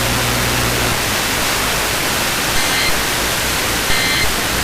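Steady radio static with a low hum that stops about a second in. About two and a half seconds in, and again near the end, comes a short buzzy data burst, about a third of a second each: EAS SAME end-of-message (NNNN) tones closing the alert broadcast.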